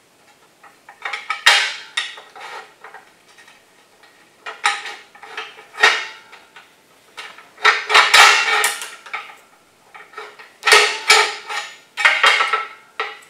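Demag P hoist's steel rope guide band and its riveted cast-iron wedges being pried and worked off the grooved wire rope drum: metal clinking, rattling and scraping in four bunches of sharp knocks.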